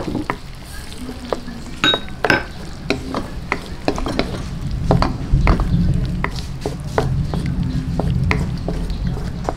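Jackfruit strips frying in melted butter in a nonstick wok, stirred with a wooden spatula that scrapes and knocks against the pan again and again over a light sizzle. A low rumble joins about halfway through.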